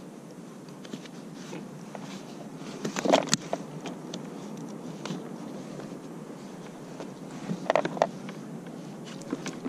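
Knocks and rattles from a cod being unhooked on a plastic sit-on-top kayak as a soft-plastic paddle-tail lure is worked out of its mouth. They come in two short clusters, about three seconds in and again near eight seconds, over a steady faint hiss.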